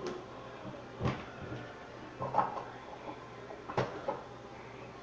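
A few short knocks and bumps, about three spread over a few seconds, over quiet room noise.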